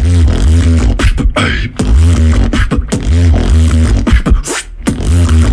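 Solo beatboxing built on a lip roll bass: a deep buzzing bass from rolled lips in a repeating pattern, cut with sharp percussive clicks. A brief rising squeal comes about a second and a half in.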